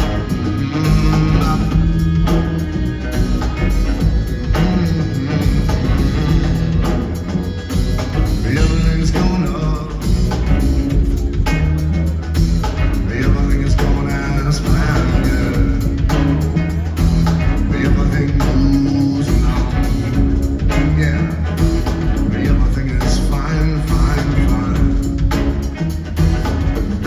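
A rock band playing live through a concert PA, with a heavy bass line and a steady drum beat.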